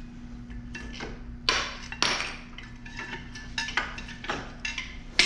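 Metal tools and brake parts clinking and knocking in a series of sharp taps and clatters, the loudest about one and a half and two seconds in and again at the very end, over a steady low hum.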